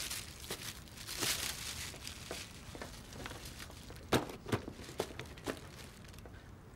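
Paper packing and cardboard rustling and crinkling as moving boxes are unpacked, then four sharp taps about a second and a half apart, between about four and five and a half seconds in.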